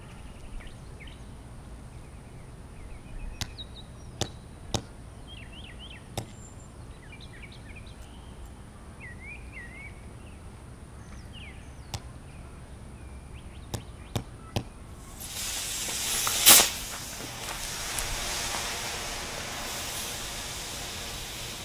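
Several sharp hammer strikes on a nail being driven into a 3S LiPo drone battery pack, with birds chirping. About fifteen seconds in, the punctured pack starts venting with a sudden steady hiss as it pours out smoke, and a loud sharp pop comes a second or so later.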